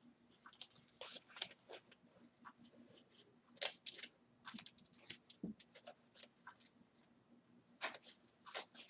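Paper label band crinkling and tearing as it is worked off a ball of super bulky wool yarn: a string of short, sharp rustles and crackles.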